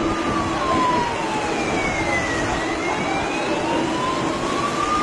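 Wailing siren, its pitch sliding slowly down and back up over about five seconds. A second, higher siren tone follows a similar slide slightly out of step. Both sound over a steady, loud rushing noise with a low hum.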